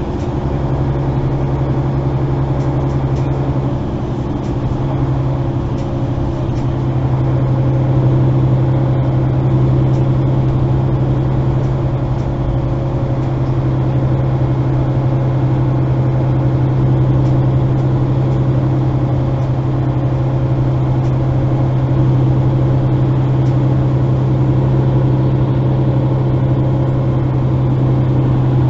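Mercedes-Benz O530 Citaro Facelift articulated bus heard from inside the passenger cabin while under way: a steady diesel engine hum with road noise, swelling a few seconds in and then holding level.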